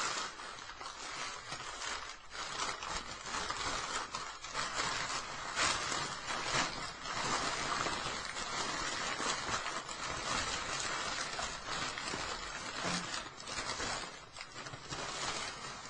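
Paper packing wrap rustling and crinkling right against the microphone as a fingerboard bench is unwrapped, a steady rustle full of small crackles.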